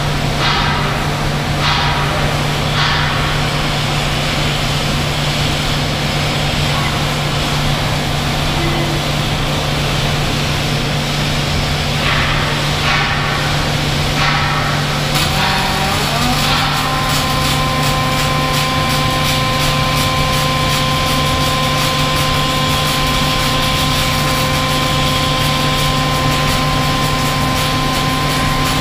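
Robot welding cell running: a steady machine hum over loud factory noise, with a few short clatters near the start and again about halfway. About halfway in, a motor whine glides up and then holds steady.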